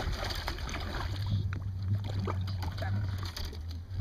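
Water splashing and sloshing as a large grass carp thrashes at the boat's side while being grabbed by hand, over a steady low hum.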